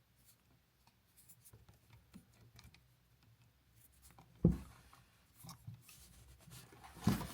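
Faint scraping and small clicks of electrical wire and an outlet being handled and bent into shape, with one sharp knock about four and a half seconds in.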